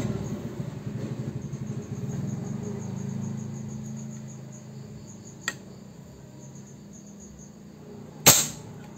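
Crickets chirping in a fast, even pulse, with a low hum fading away over the first few seconds. A faint click comes about five and a half seconds in, then near the end a single sharp, suppressed shot from a Reskal PCP air rifle fired over a chronograph, the loudest sound.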